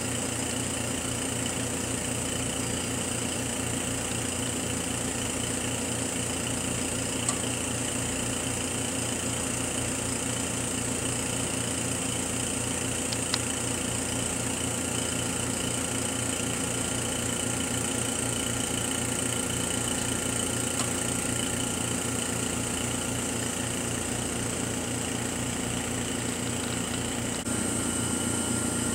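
Steady mechanical hum of a running Karl Suss MJB3 mask aligner setup, with a fast even pulsing underneath. It gets a little louder near the end, and two faint clicks come partway through.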